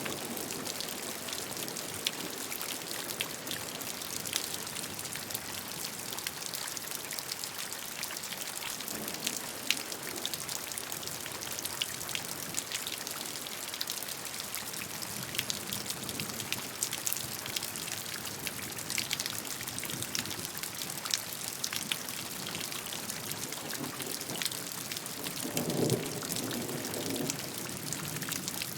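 Steady rainfall, a constant hiss with many individual drops ticking close by. Near the end there is a brief low swell under the rain.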